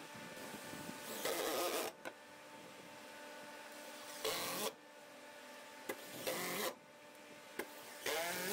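Cordless impact driver sinking construction screws into stacked pressure-treated lumber. It runs in four short bursts, the first the longest, with a few light clicks between them.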